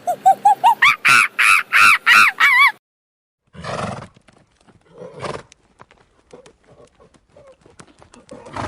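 Animal calls: a fast run of pulsed, pitched calls climbing in pitch, which breaks off suddenly about three seconds in. After a short pause come a few low, breathy bursts and scattered knocks.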